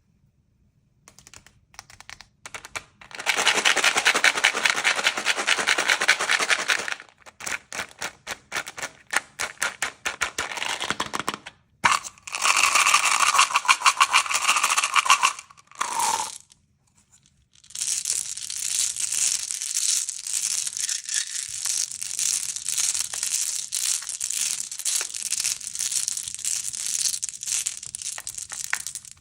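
Crinkly sweet packaging being handled and torn open, in long stretches of dense crackling broken by runs of quick clicks, with a brief falling squeak about sixteen seconds in.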